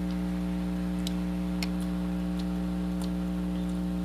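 A steady hum with a few faint ticks and clicks scattered through it.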